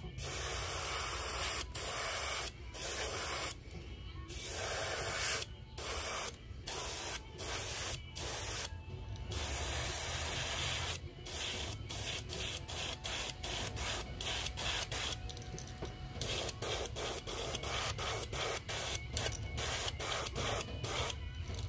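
Airbrush spraying opaque red paint over a bait through scale mesh, its hiss starting and stopping in many bursts as the trigger is worked. The bursts come shorter and quicker in the second half, over a low steady hum.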